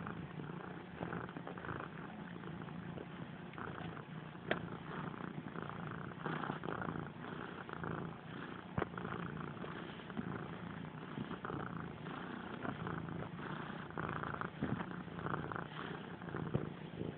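Domestic cat purring steadily, right up against the microphone, while kneading. Two brief clicks sound about four and a half and nine seconds in.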